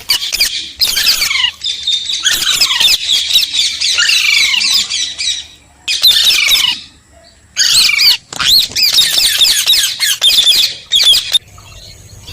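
A parrot squawking and chattering in rapid runs of high, shrill chirps, many of them sweeping down in pitch. It comes in three bouts, with short breaks about six and seven and a half seconds in.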